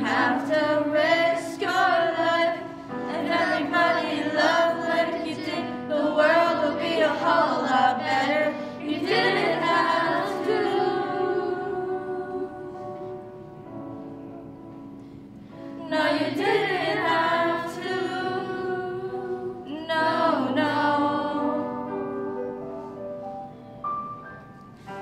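A group of voices singing a slow song over held accompaniment chords; the voices drop back for a few seconds in the middle and come in again strongly.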